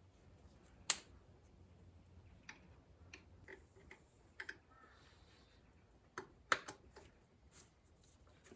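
Scattered light clicks and taps of a spanner and parts being handled while a coil pack is refitted, with sharp clicks about a second in and several close together around six seconds in.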